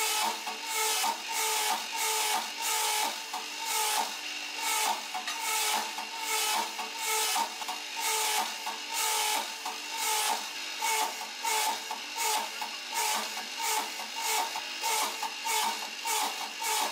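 Power hammer striking a red-hot Damascus steel billet in a steady run of blows, about two a second, each with a short metallic ring.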